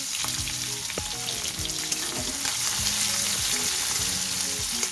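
Chopped onions and cumin seeds sizzling in hot oil in a kadai, with a spatula stirring and scraping through them.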